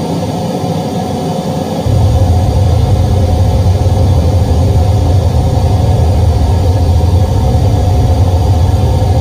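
Large sound-system speaker boxes playing a steady, rumbling test noise during tuning. About two seconds in, heavy low bass comes in and the whole sound gets louder, then holds steady.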